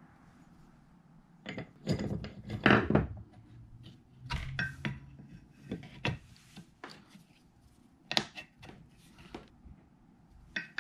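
Metal clamping-fixture parts being handled, fitted and set down on a cast iron base plate and a wooden tabletop: irregular clinks, knocks and light scrapes of metal on metal. The loudest knocks come about two seconds in and again near the end.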